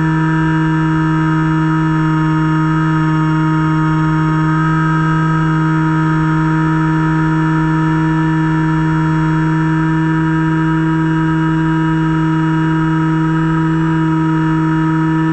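Finwing Penguin RC plane's electric motor and pusher propeller whining at a steady throttle in flight: a constant pitched drone with many overtones.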